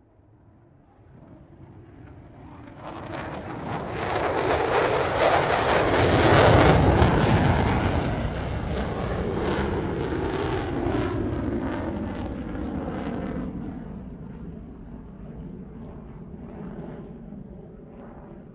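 F-35 fighter jet's F135 turbofan engine roaring past in a display pass: it builds over a few seconds, is loudest about six seconds in, then recedes with a harsh crackle and fades away.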